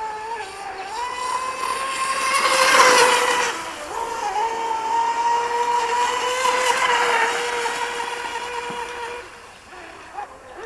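Fast electric RC outboard boat's 4S 3660 motor running hard, a steady high-pitched whine with a rush of spray hiss as it passes closest about three seconds in. The whine fades as the boat runs away near the end.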